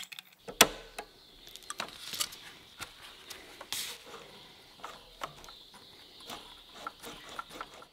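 Scattered small clicks and taps of needle-nose pliers and a thin steel control wire being bent and hooked onto the heater box's flap lever, with a brief scrape or rustle near the middle.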